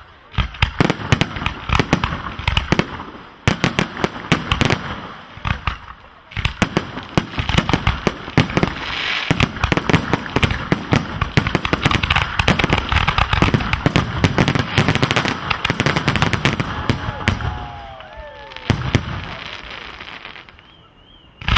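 A dense, rapid barrage of firework shell bursts from professional firework cakes and candles: a continuous stream of sharp bangs and crackle that thins out near the end, followed by one last short cluster of bangs. This fits the display's finale volley of shells from 2.5 to 6 inches.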